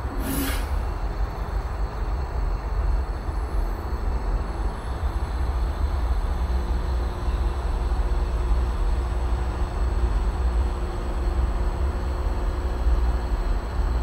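Vaillant aroTHERM Plus 7 kW air-source heat pump outdoor unit running with a steady low rumble. A brief hiss sounds about half a second in, and a faint low hum joins about halfway through.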